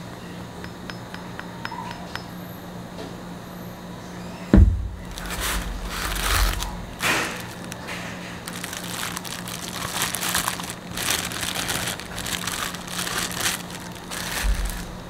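Clear plastic wrap crinkling and rustling irregularly as a porcelain teapot lid is unwrapped, after a dull thump about four and a half seconds in. A low steady hum runs underneath.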